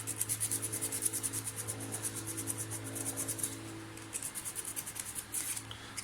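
Sandpaper scrubbed quickly back and forth around the copper slip ring of a vacuum cleaner's cord reel, in rapid scratchy strokes with a short pause a little past the middle. The ring is being cleaned so that the contact strips pass current well, curing power that cuts in and out.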